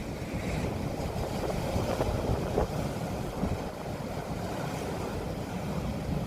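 Seaside wind and surf: a steady low rush of waves under wind buffeting the microphone.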